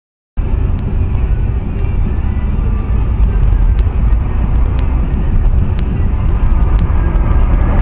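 Car driving: a steady, loud low rumble of engine and road noise with scattered faint ticks, starting abruptly about a third of a second in.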